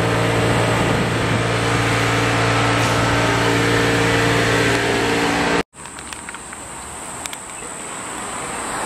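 A steady engine hum, loud and unchanging, that stops abruptly about two-thirds of the way through. Quieter street noise follows, with a few light clicks.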